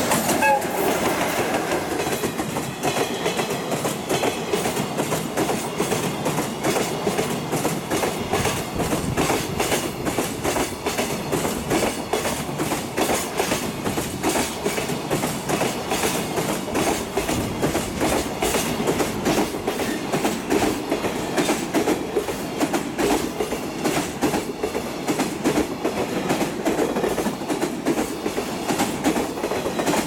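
Container freight train passing close by behind an EF66 electric locomotive. The wagons' wheels beat out a steady rhythmic clatter over the rail joints.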